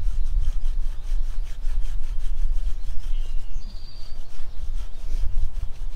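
Sticky-tape lint roller rolled back and forth over trouser fabric, a quick repeated rubbing as the tape picks up dog hair.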